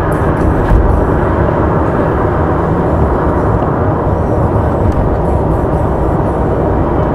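Steady road noise of a car cruising on an expressway, heard from inside the car: a constant low rumble of tyres and engine.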